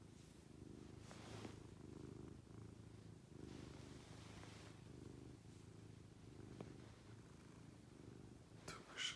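Grey shorthair cat purring steadily while her chin is scratched, the purr swelling and easing with each breath: the contented purr the owner says means she is super comfy. A brief sharp sound just before the end.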